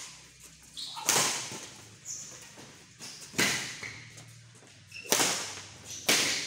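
Badminton rackets hitting a shuttlecock in a rally: five sharp smacks a second or so apart, each echoing in a large sports hall.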